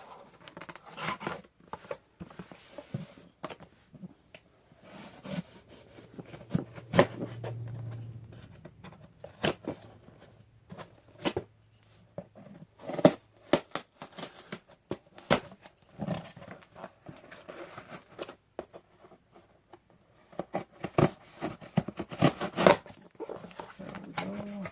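A cardboard shipping box and its packing being opened by hand: irregular rustling, tearing, scraping and sharp clicks and knocks of the box and packaging being handled. A low hum runs for several seconds in the middle.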